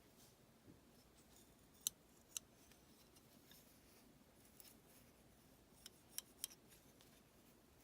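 Pliers being worked open and shut, the metal jaws giving faint sharp clicks: two about half a second apart, then a quick run of three near the end.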